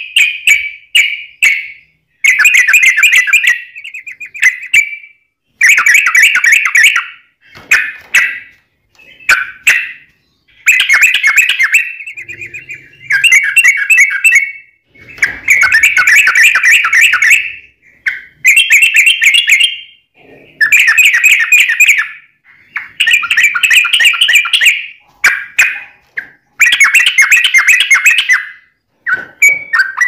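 Yellow-vented bulbul (trucukan) singing: a dozen or so loud phrases of fast warbled notes, each one to two seconds long, with short pauses between.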